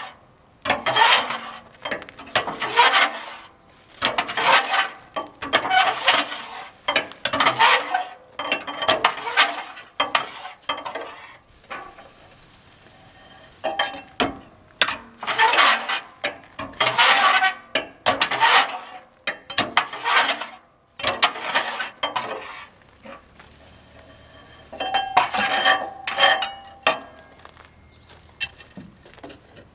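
Metal tool scraping and raking ash out of the bottom of a wood gasifier: repeated scraping, clinking strokes on metal, roughly one a second, with a few short pauses.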